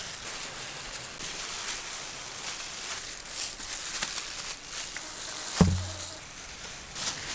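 Soft rustling and crackling of plastic-gloved hands picking steamed fish flesh off the bones over a steel plate, with one dull thump a little past halfway.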